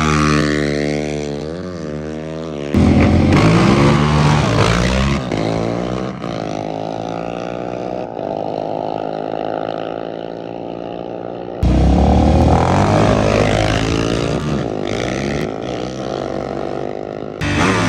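Dirt bike and ATV engines revving hard and accelerating, the pitch climbing and dropping back through the gear changes. The sound jumps abruptly a few times as it cuts to another run.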